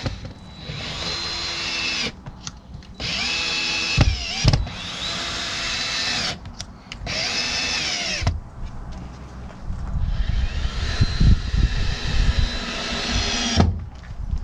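Cordless drill running against the box truck's new rear wall panel in about four bursts with short breaks, each starting with a rising whine as the motor spins up.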